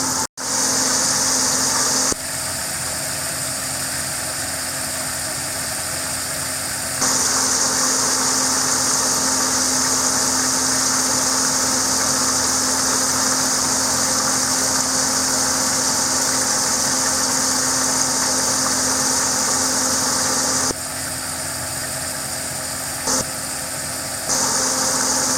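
Chicken legs frying in hot oil in a skillet: a steady sizzling hiss with a low steady hum underneath. The loudness drops and returns in a few sudden steps.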